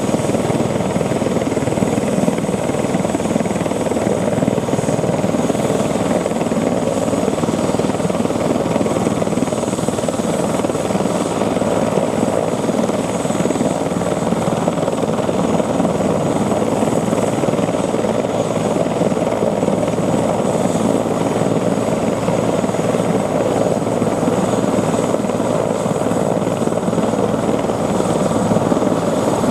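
Eurocopter EC145 twin-turbine helicopter running on the ground with its rotors turning: a steady rotor and turbine noise with a thin high turbine whine that stays level throughout.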